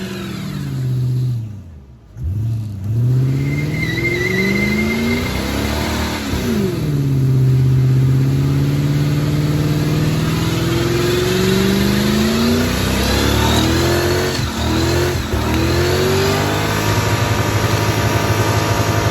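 Car engine revving hard through a burnout with the rear tyres spinning: the revs drop briefly about two seconds in, then climb and hold high, surging up again several times. A short high squeal comes about four seconds in.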